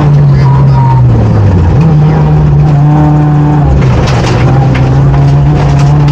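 A 2008 Honda Fit rally car's four-cylinder engine running hard, heard inside the cabin. The revs sag about a second in and jump back up near two seconds, then hold steady. From about four seconds in, gravel crackles against the underside as the car runs onto a dirt road.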